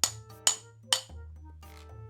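Background music with a sharp, clicking percussive beat about twice a second over sustained notes and a bass line.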